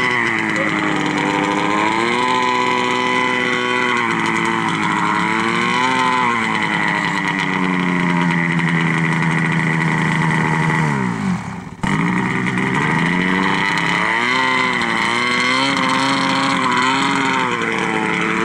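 Snowmobile engine revving up and down over and over. About eleven seconds in the pitch sinks and the sound drops out for a moment, then the revving picks up again.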